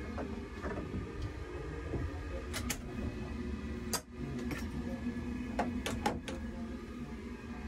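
Steady low rumble of a moving train inside a small toilet cubicle, with a series of sharp metal clicks from the cubicle door's latch lock being turned and the door worked: a pair about two and a half seconds in and a quick cluster around six seconds in.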